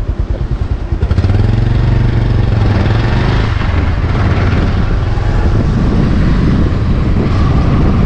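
Strong wind buffeting the microphone: a loud, fluttering low rumble that gets heavier about a second in.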